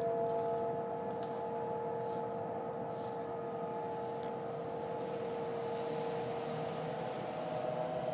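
Unexplained steady droning hum of several held tones together, heard as coming from all around; it eases slightly after the first second and swells again near the end.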